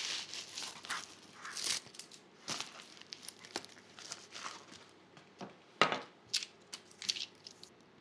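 Black plastic bubble mailer crinkling and rustling as it is handled, folded and pressed shut, dense at first and then sparser, with a few sharper crackles about six seconds in.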